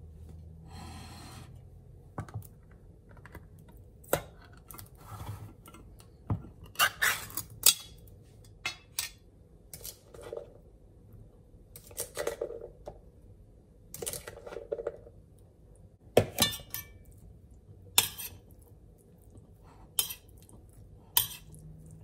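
Metal spoon clinking and scraping against a tin can and a plate in irregular sharp taps as kidney beans are spooned onto vegetables and the dish is stirred.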